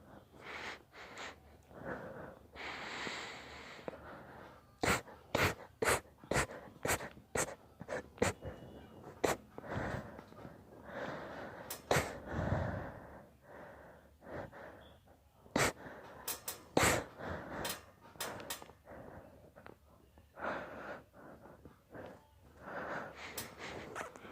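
A man sneezing over and over in a long, induced sneezing fit: many short, sharp sneezes, several in quick runs, between wheezy, gasping breaths.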